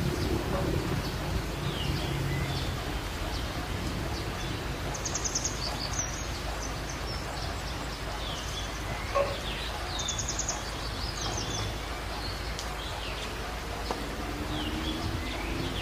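Small birds chirping and calling over a paddy field, with two quick rattling trills, over a steady low outdoor rumble. Near the end a motor vehicle's engine hum comes in.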